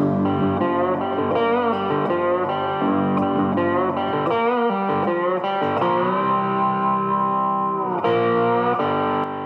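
Background music led by a guitar, its notes bending and wavering, with one long held note about six seconds in.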